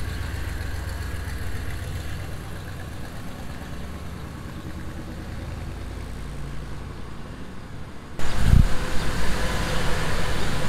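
1984 Chevy K10 pickup's small-block V8 running as the truck drives slowly along the street, a low rumble at a distance at first. After a sudden cut about eight seconds in it is closer and louder, with a low thump just after.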